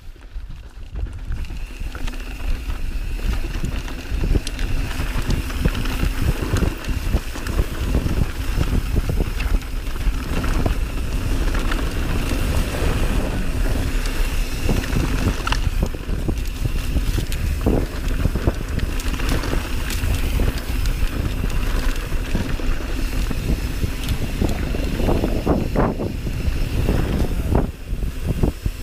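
Mountain bike rolling fast along a dirt singletrack: wind buffeting the camera microphone over tyre noise on dirt and the bike rattling over bumps. It builds over the first few seconds as speed picks up.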